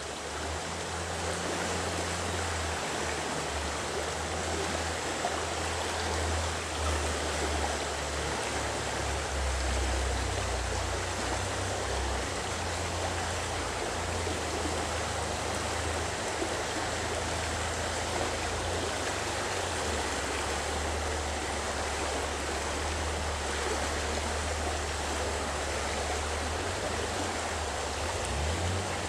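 Big Cottonwood Creek flowing fast over its bed: a steady rushing of water, with a low rumble underneath.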